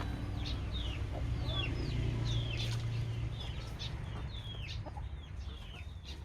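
Chicks peeping: short high chirps that fall in pitch, repeated about two or three times a second, over a steady low rumble.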